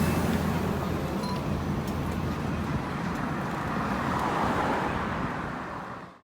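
Steady road traffic noise with a low engine hum, fading out quickly near the end.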